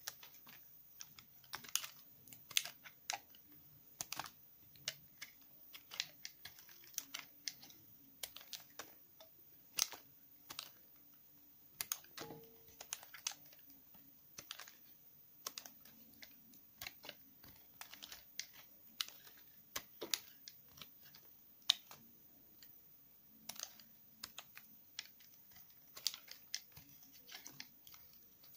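Snap-off utility knife blade cutting into a bar of Palmolive olive soap, carving off small pieces: an irregular run of crisp crunches and clicks, several a second.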